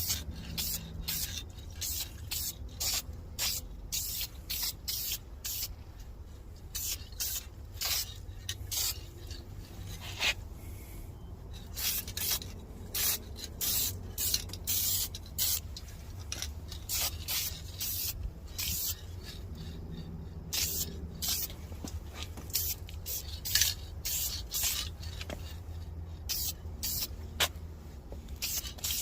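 Aerosol can of Dupli-Color vinyl spray paint being sprayed in many short hissing bursts, about one or two a second, with a brief pause about ten seconds in, as the colour coat goes onto a leather seat.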